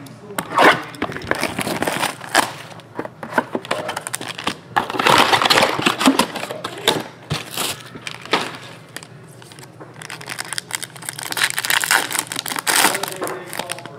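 A cardboard trading-card box being handled and opened with clicks and rustles, then the foil wrapper of a 2016 Strata baseball card pack crinkling and crackling as it is pulled open by hand.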